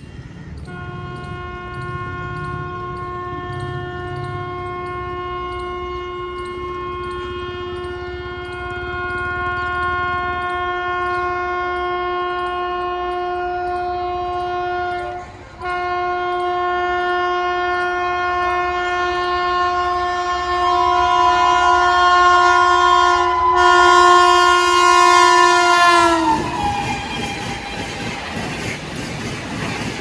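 WAP-5 electric locomotive sounding its horn in long continuous blasts as it approaches at about 150 km/h, with one brief break about halfway; the horn grows louder and its pitch drops sharply as the locomotive passes, about 26 seconds in. Then the rush and clatter of the express coaches passing at speed.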